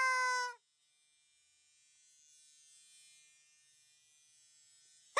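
A high-pitched, buzzy voice holds one note for about half a second and cuts off, leaving only a faint steady hum.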